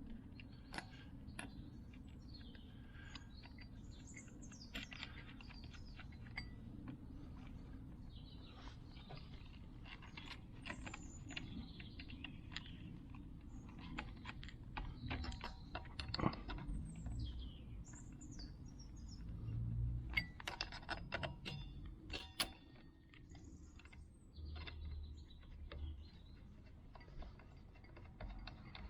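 Scattered metallic clicks and clinks of tools and small parts being handled, with a few louder knocks in the middle, over a low steady hum.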